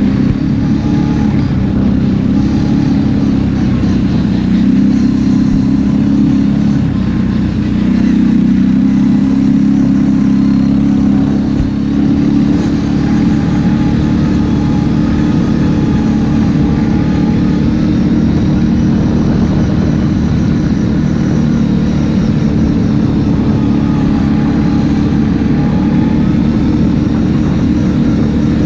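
Kawasaki KFX 700 ATV's V-twin engine running steadily while riding, with its pitch rising slightly around eight seconds in before settling back.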